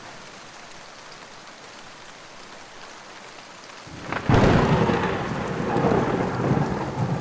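Steady rain falling, then a sudden loud crack of thunder about four seconds in that rolls on as a long rumble.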